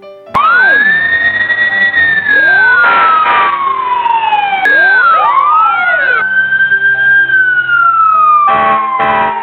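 Recorded siren sound effect wailing: the tone rises quickly and then falls slowly, twice over, with two short blasts near the end.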